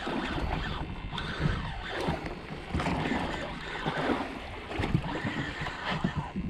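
Water and wind noise aboard a small fishing boat at sea, a steady low rumble with scattered irregular knocks and handling sounds.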